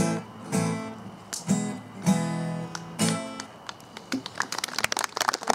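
Acoustic guitar strumming the closing chords of a song, five strokes that ring out and die away about three and a half seconds in. A patter of sharp clicks follows near the end.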